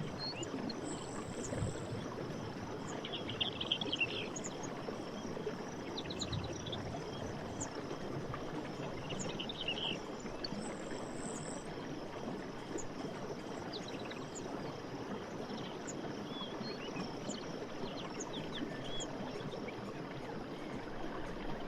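Forest ambience: a steady rush of flowing water, with short bird chirps a few times and brief high insect buzzes.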